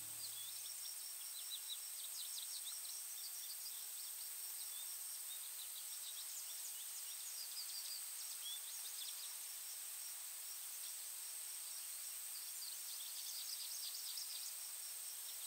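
Quiet woodland ambience: faint, scattered small-bird chirps over a steady high hiss.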